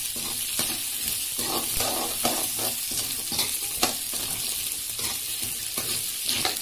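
Small onions and garlic cloves sizzling in hot oil in a metal kadai as they are sautéed, with a steady hiss throughout. A ladle stirs them, scraping and clicking against the pan every so often.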